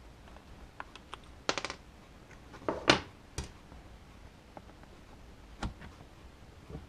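A few sharp clicks and light knocks of small plastic RC-car parts and tools being handled, with a quick rattle of clicks about a second and a half in and the loudest knock near the middle.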